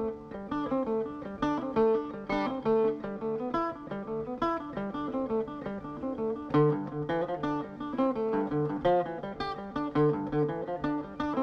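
Background music: a plucked acoustic guitar picking a run of quick single notes.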